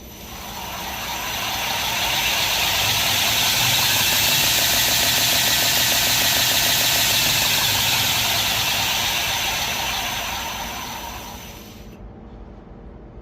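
2x72 belt grinder under load, with metal pressed to the running belt: a loud abrasive hiss that swells over the first two seconds, holds, and dies away about twelve seconds in. Under it is the steady hum of the grinder's motor.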